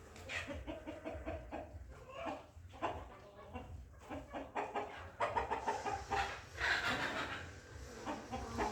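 Chickens clucking: a run of short, rapidly repeated calls that grow louder from about five seconds in.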